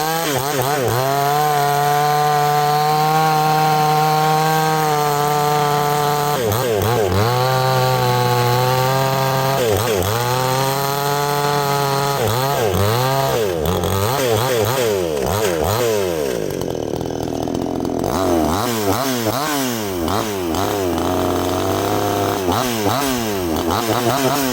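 NEOTEC NCS6200 62cc two-stroke chainsaw cutting through an oak log into rounds. The engine runs high and steady for the first few seconds, then its pitch dips and recovers again and again as the chain loads up and frees in the cut, and it winds down near the end.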